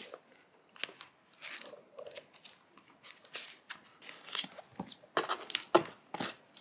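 Paperback manga volumes being handled and pulled out of a cardboard box: paper rustling, pages riffling and light knocks of the books against each other and the box, in scattered short bursts.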